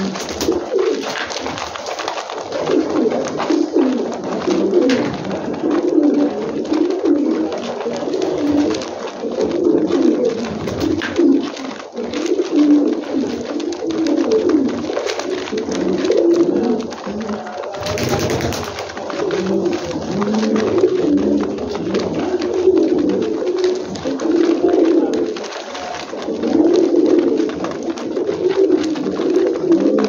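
Several domestic fancy pigeons cooing continuously, their calls overlapping, with light clicks of beaks pecking at grain on a feed tray.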